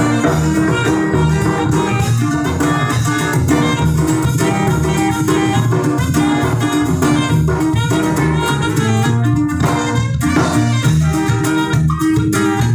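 Norteño conjunto playing a huapango instrumental led by saxophone, with bass and drums keeping a steady beat underneath.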